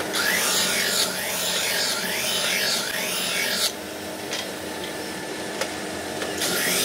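Brake shoe lining ground against a spinning abrasive drum: a harsh rasping that wavers up and down in pitch as the shoe is swept across the drum. It stops just past halfway and starts again near the end, over a steady machine hum.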